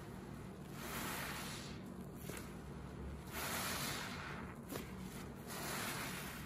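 Red porous bath sponge loaded with soapy water and suds, squeezed by gloved hands: three wet squishing squeezes a little over a second apart, the middle one the longest and loudest.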